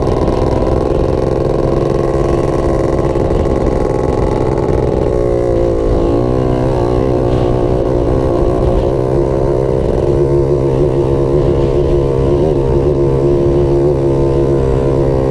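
Engine of an off-road vehicle running steadily under load while driving across soft sand. For several seconds from about five seconds in the engine speed wavers up and down, then it settles into a steady run again.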